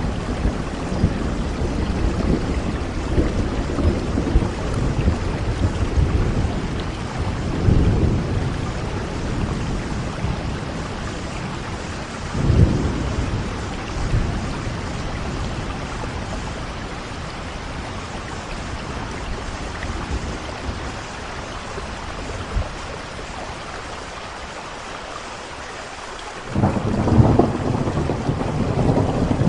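Heavy rain falling steadily during a thunderstorm: rolling thunder in the first several seconds, a sharp clap about twelve seconds in, a quieter lull of rain, then a new loud roll of thunder breaking in suddenly near the end.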